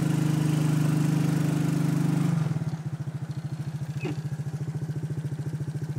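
Quad (ATV) engine running steadily under way, then easing off about two seconds in and settling to a quieter, evenly pulsing idle as the quad slows.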